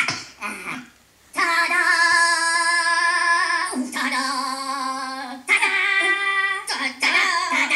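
Animated Minion characters singing in high voices: a few long held notes in phrases lasting a couple of seconds each, with brief chatter before and after.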